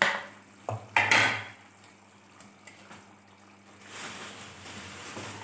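A few sharp clatters of a wooden spatula against a plate as raw chicken pieces are pushed off into a pot of simmering curry, in the first second and a half; then a steady hiss of the liquid bubbling in the pot from about four seconds in.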